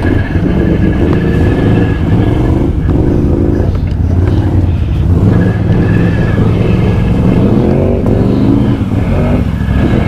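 Can-Am Outlander XMR ATV's V-twin engine running hard under load, its revs rising and falling as the quad pushes through deep mud and water, with a climb in revs near the end.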